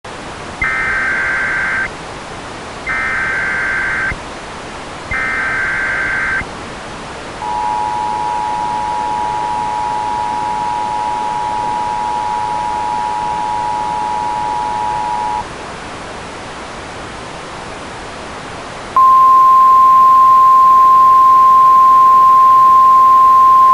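Emergency Alert System tones over a steady radio hiss. First come three short bursts of the warbling SAME data header, then the two-tone attention signal for about eight seconds, then a few seconds of hiss alone. A louder single-pitch warning tone starts about 19 seconds in. Together they signal a flash flood warning about to be read.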